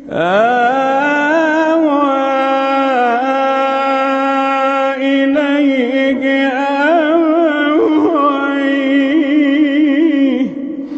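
A male reciter's voice chanting the Quran in the melodic tajwid style, drawing out one long phrase. It starts with a rising glide, holds the line with wavering, ornamented turns, and breaks off with a drop in pitch about ten and a half seconds in.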